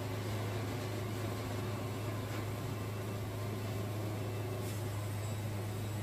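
Wood-Mizer LT70 Wide band sawmill's diesel engine running steadily, a constant low hum under an even mechanical noise.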